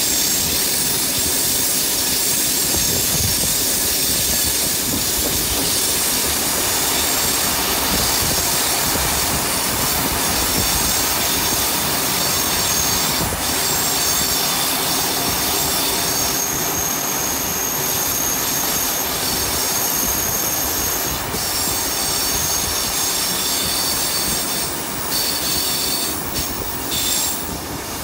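Passenger carriages of a steam-hauled train rolling on a curve, heard from a carriage window: a steady rumble of wheels on rail with high, thin steel-on-steel flange squeal that stands out most in the second half.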